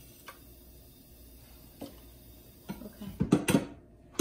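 A couple of small clicks, then a quick run of loud knocks and clatter about three seconds in, as stuck frozen items are worked loose by hand inside a refrigerator's freezer.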